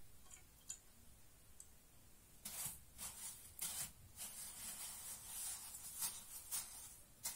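Roasted sesame seeds rustling in a bowl as hands press and turn a wet dough ring in them. It comes as a series of short, faint, grainy swishes from about two and a half seconds in, after a few small ticks.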